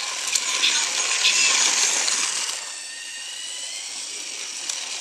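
Battery-powered Trackmaster Thomas toy engine running along plastic track: its small electric motor and gears whirring steadily, with a few light clicks from the wheels on the track. A thin whine comes in during the second half, as the whole sound gets a little quieter.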